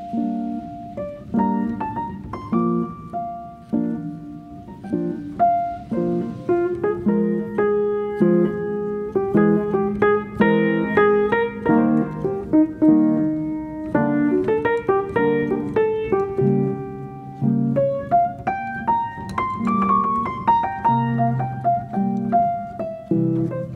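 Background piano music: a steady run of single notes and chords with a melody on top.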